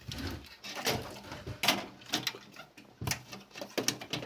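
Irregular clicks and knocks of hands handling computer parts while a case fan is fitted into a PC.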